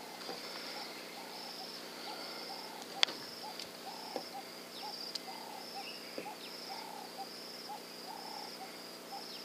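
Birds calling in the bush: short low hooting notes repeat about twice a second over a high, pulsing call that goes on without a break. A single sharp click sounds about three seconds in.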